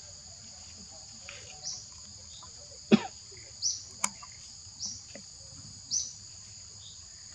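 Steady high-pitched insect drone, two even tones, with a short high chirp repeating about once a second. A sharp knock about three seconds in is the loudest sound, and a smaller click follows a second later.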